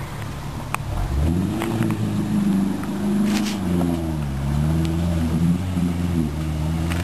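Suzuki Samurai engine running under throttle, its pitch climbing about a second in, sagging around the middle and rising again near the end as the 4x4 is driven back through the river, with a few sharp clicks over it.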